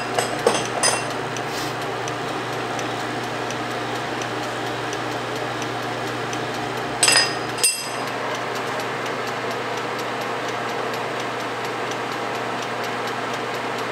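Metal lathe and shop machinery running with a steady hum, with a few sharp metallic clinks of steel parts and tools, twice near the start and again about seven seconds in.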